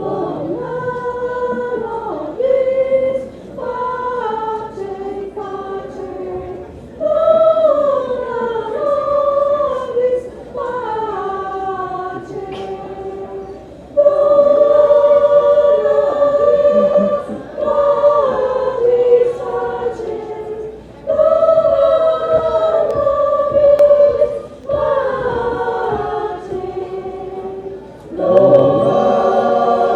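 A choir singing, in phrases of held notes with short breaks between them. It grows louder about halfway through.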